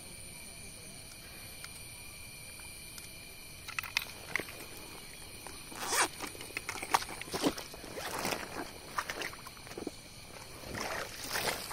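A few seconds of quiet outdoor hiss with faint steady high tones, then from about four seconds in a run of irregular clicks and rustles, the sound of an angler handling his gear and catch.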